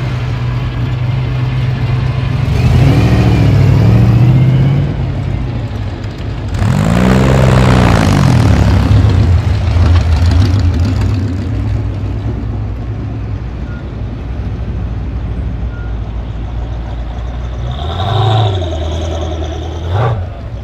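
Classic and custom cars driving slowly past one after another, their engines running steadily. The engine note swells loudly twice, about three and seven seconds in, rising and then falling as cars rev and pull by.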